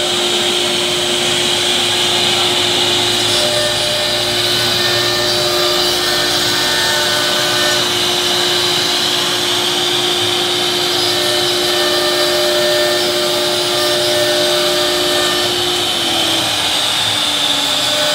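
CNC router cutting grooves into a sheet of board, its spindle and dust extraction running with a steady, loud whirring noise. A steady hum in the sound drops slightly in pitch near the end.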